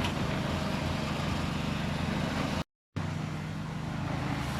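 A motor engine running steadily at a constant speed. The sound cuts out completely for a moment about halfway through.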